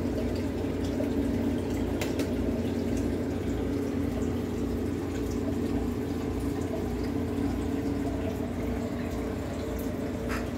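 Aquarium pump running with a steady hum, with water trickling in the tank.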